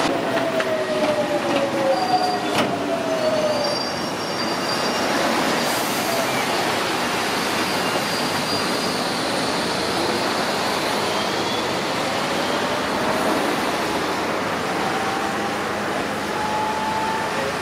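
Docklands Light Railway train pulling out of the platform: electric traction motor whine over the steady rumble of the wheels on the rails, the whine gliding down in pitch over the first few seconds and another rising tone near the end. One sharp click about two and a half seconds in.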